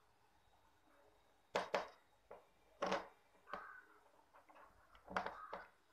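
Several faint, short sticky squelches and clicks as hands press and squish glue slime in a plastic bowl.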